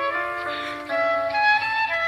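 Samsung Galaxy S25 Ultra preset tone playing through the phone's speaker: a melodic tune of quick stepping notes.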